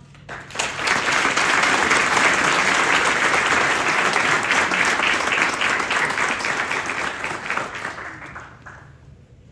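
Audience applauding, starting about half a second in, holding steady, then dying away over the last couple of seconds.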